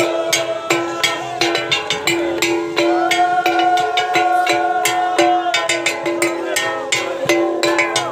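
Music: fast, dense percussion strikes over long held notes that change pitch every couple of seconds.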